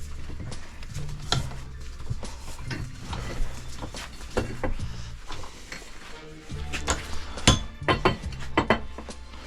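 Hand tools scraping and clinking against a metal car part as it is cleaned up by hand, in irregular sharp strokes that come louder and closer together near the end.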